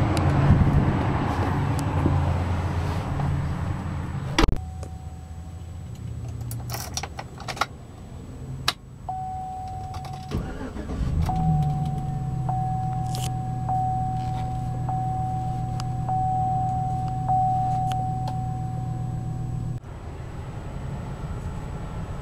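Keys jangling and clicking, then a 2007 Chevrolet Silverado's engine cranking and starting about ten seconds in and settling into a steady idle. A dashboard warning chime rings in repeated tones over the idle and stops near the end.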